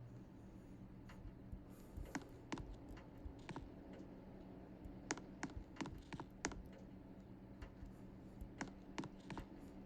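Faint, irregular light clicks and taps, about fifteen of them, over a steady low hum from running ceiling fans. A lower part of the hum drops out right at the start.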